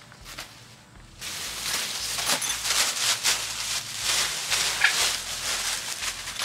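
Dry oak leaves rustling and crunching as two raccoons scramble and tussle through a deep leaf bed, starting about a second in.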